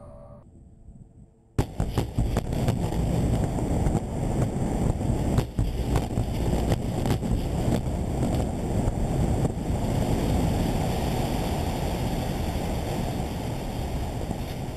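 A large explosion: a sudden blast about a second and a half in, then a long, loud rumble with a few sharp cracks in its first seconds, slowly fading.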